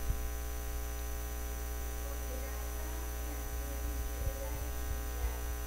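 Steady electrical mains hum from the microphone and sound system, a low buzz with a ladder of higher tones. A faint voice can be heard in the background about two to three seconds in.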